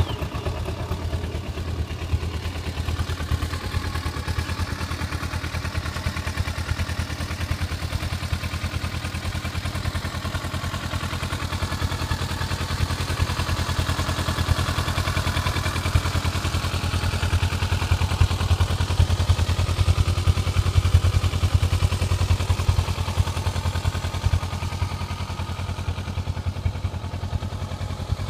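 Kawasaki Versys 650's parallel-twin engine idling steadily, freshly started, with an even, rapid pulse; it grows a little louder in the middle.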